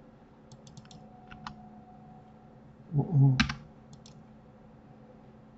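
Computer keyboard and mouse clicks in short scattered runs. About three seconds in comes a louder, brief low sound mixed with clicks.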